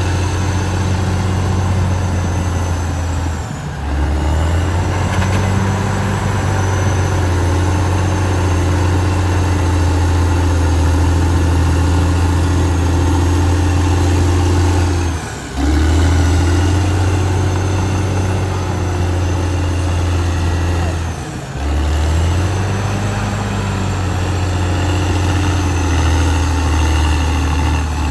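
Caterpillar D6R XL bulldozer's diesel engine running steadily at working speed, with three brief drops in level.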